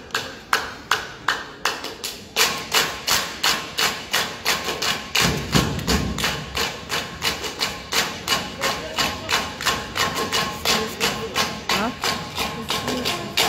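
A Samoan dance group clapping in unison in a steady, fast rhythm, about three claps a second.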